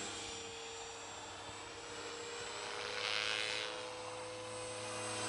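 Acro480 RC helicopter flying at a distance: a steady hum and whine from its rotors and motor, with a brief swell of rushing noise about three seconds in.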